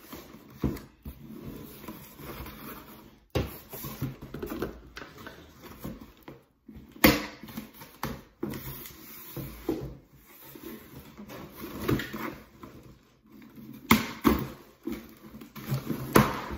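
Cardboard shipping box being handled and pried open: irregular rustling and scraping of cardboard, with several sharp knocks and taps.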